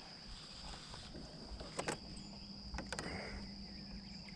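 Steady high-pitched insect chorus droning without a break, with a few short sharp clicks or knocks about two and three seconds in.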